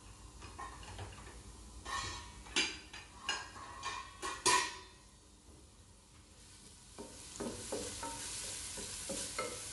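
A few sharp clacks of kitchen utensils, then, from a little past halfway, chopped aromatics frying in olive oil in a nonstick pot: a sizzle that grows as the oil heats, with a wooden spatula stirring and knocking against the pot.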